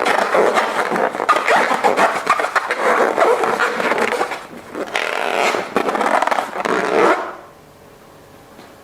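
Slime being squished and kneaded by hand: dense, wet crackling and clicking that stops suddenly about seven seconds in.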